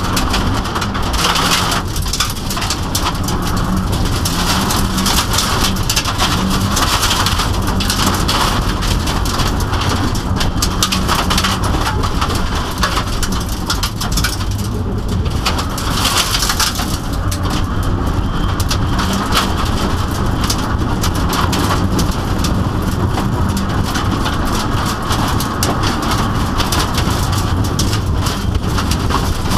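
Subaru WRX's turbocharged flat-four engine running hard, heard from inside the cabin, over a constant loud spray of gravel and grit rattling against the underbody and wheel arches on a dirt course.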